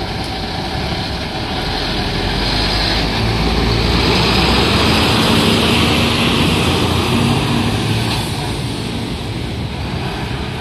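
Fire truck driving slowly past at close range. Its engine rumble grows louder to a peak a little before the middle, then fades as the truck pulls away.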